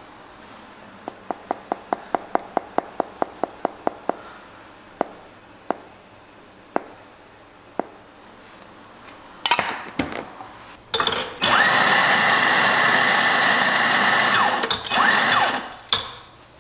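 Electric espresso grinder running for about five seconds, grinding coffee beans into a portafilter, with a short dip and restart near the end. Before it come a brief rattle of coffee beans poured from a tin into a glass, and earlier a quick series of sharp clicks.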